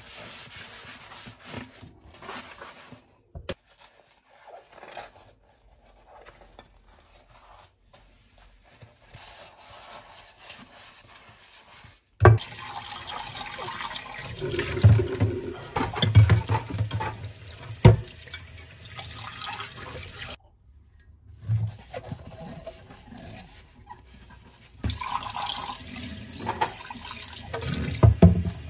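Washing up at a stainless steel kitchen sink. First a sponge scrubs a glass baking dish. About twelve seconds in, the tap starts running as a wooden bowl is rinsed under it, with a few knocks against the sink. The water cuts off and then runs again near the end as a wooden cutting board is rinsed.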